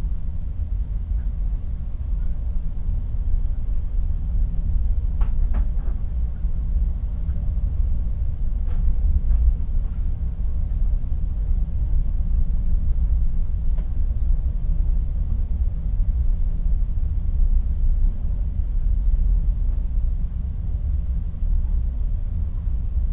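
Steady low rumble of the sea moving against a ship's hull, heard from inside a cabin at the porthole, with a few faint clicks.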